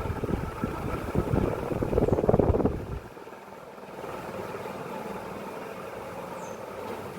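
Ceiling fan running, with a loud, uneven low rumble that drops away suddenly about three seconds in, leaving a quieter steady hum.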